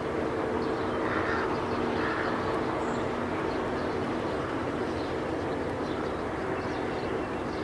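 Eerie mysterious-sky-sound recreation in the style of the Kiev 'strange sounds': a low hum of several steady tones over a constant rumbling drone, the tones fading away about halfway through. Faint bird chirps come and go above it.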